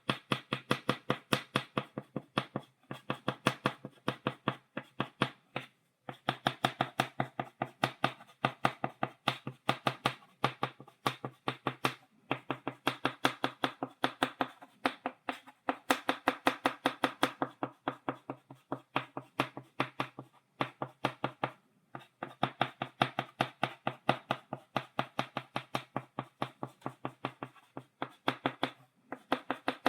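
Chalk tapped rapidly against a blackboard, stippling dots: quick sharp taps, several a second, in runs of a couple of seconds with brief pauses between.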